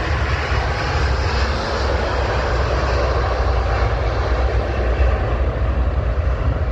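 Jet airliner's engines at takeoff thrust during the takeoff roll: a loud, steady, deep rumble.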